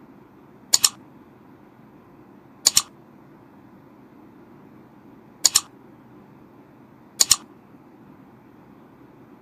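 Four crisp mouse double-clicks, about two seconds apart, over a faint steady hum: the click sound effect of an on-screen like-and-subscribe button animation.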